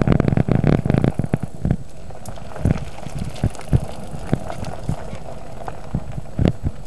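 Footsteps on a rough dirt and gravel track mixed with handling noise from a body-worn camera: a quick cluster of knocks and scuffs in the first second, then irregular thuds about every half second over a steady hiss.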